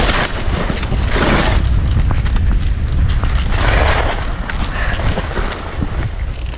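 Skis sliding downhill through snow with wind rumbling on the action camera's microphone. There are louder swishes of the skis at the start, about a second in and near four seconds in.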